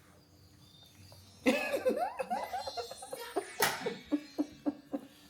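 Hearty laughter starting about a second and a half in, breaking into a run of short, quick bursts with a sharp breath or cough partway through.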